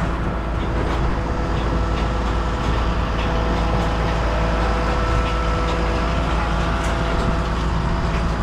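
Large pumpkin harvesting machine running steadily: a constant engine and machinery drone with a steady hum, and a few light clicks over it.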